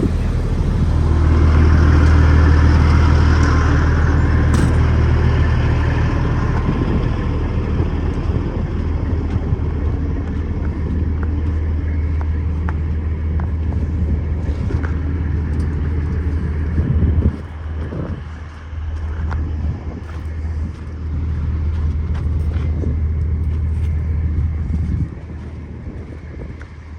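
Truck on the highway: a steady low engine drone with road noise, dropping in level briefly twice in the second half.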